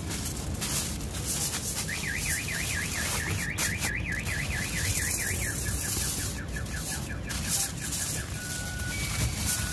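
Aluminium foil crinkling as it is folded and wrapped around a piece of meat. From about two seconds in, an electronic alarm warbles in the background, rising and falling about four times a second, then fades and switches to alternating high and low beeps near the end.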